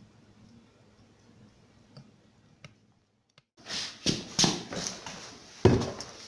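A few faint clicks over low room tone, then, a little past halfway, a run of loud hard knocks and clatter with hiss between them, the strongest knocks about four and five and a half seconds in.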